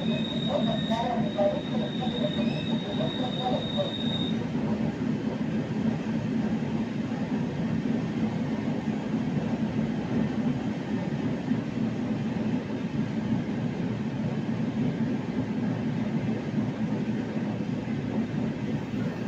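Steady running noise inside a carriage of an ER2K electric multiple unit under way: a low, even rumble of the train on the rails. A thin, high, steady whine sounds over it and stops about four seconds in.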